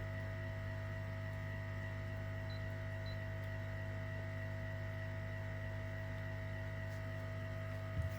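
Steady electrical mains hum from workbench equipment, low and unchanging, with a faint constant higher tone over it.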